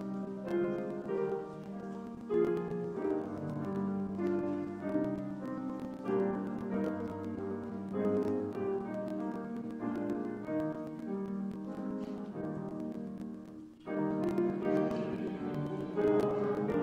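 Instrumental piano music, slow notes over held chords, with a brief break about three seconds before the end, after which it picks up again.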